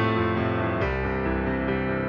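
Instrumental background music with sustained chords; just under a second in the chord changes and a deep bass note comes in.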